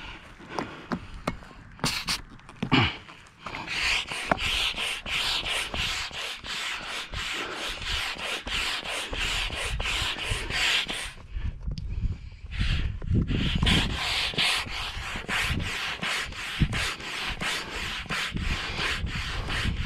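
Hand pump inflating an inflatable stand-up paddleboard through its hose: rapid, even pumping strokes of rushing air, with a short break about halfway. This is the final pumping that brings the board up to full pressure.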